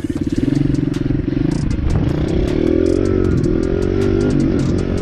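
Pit bike engine running at a steady idle, then revved up and down from about two seconds in, with scattered sharp clicks over it.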